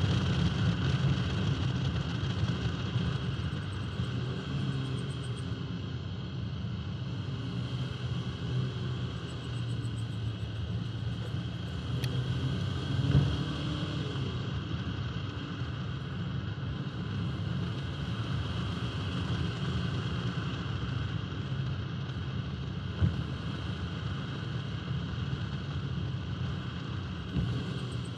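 1971 Alfa Romeo 1750 GTV on the move, heard from a camera mounted on the outside of the body: a steady low rumble of wind on the microphone and road noise, with the car's running underneath. It swells briefly about halfway through, and there is a single sharp tick later on.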